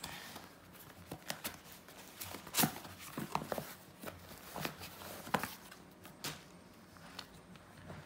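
A cardboard shipping box being opened and handled by hand: irregular rustles, scrapes and light knocks as the flaps are pulled back and the phone's boxed retail package is slid out.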